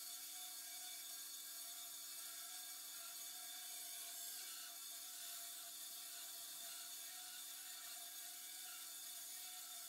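Band saw running steadily while its blade cuts a curve through a pallet-wood board: a constant motor whir with a hiss of sawing.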